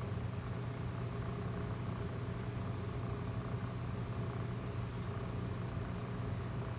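A steady low mechanical hum, even and unbroken.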